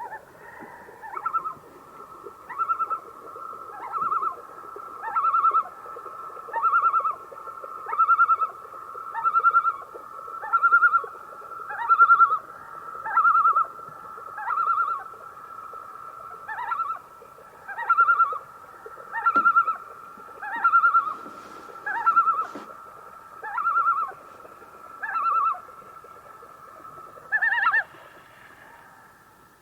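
Common loon calling: a long series of wavering notes repeated about once every second and a half over a held note. The series ends on a higher note.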